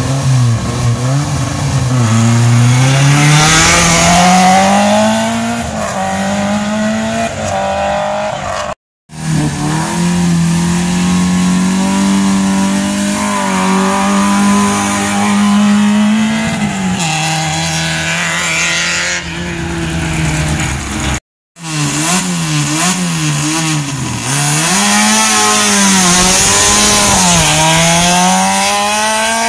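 Rally car engines revving hard in three clips. In the first, the revs climb as a car pulls away. In the next, revs are held high and steady for several seconds, then drop. In the last, a car accelerates up the road with the revs rising and falling through gear changes.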